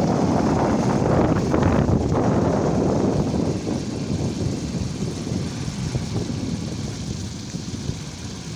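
A heavy vehicle's engine running with a loud rumble, fading gradually after about three seconds.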